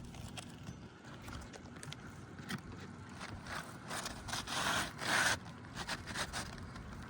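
A roof shingle being worked into place, scraping and rubbing against the shingles around it in a series of short scrapes, loudest about four to five seconds in.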